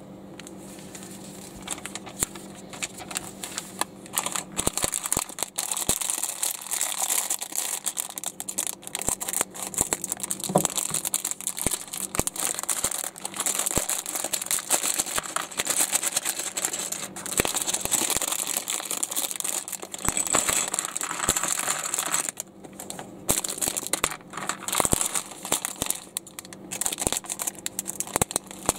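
Plastic packaging of a LEGO set being handled and opened: irregular crinkling and rustling with many small sharp clicks, starting about a second and a half in.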